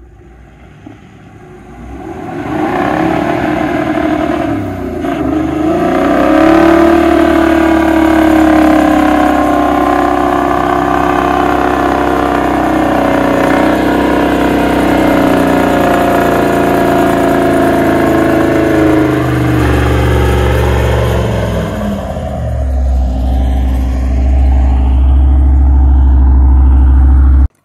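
A four-wheel-drive ute's engine revving hard under load as it drives out of thick mud towing a camper trailer, its pitch wavering as it works, with a noise that the driver flags as newly developed. About three quarters of the way through the engine falls away and wind rumbles on the microphone as the ute pulls into the distance.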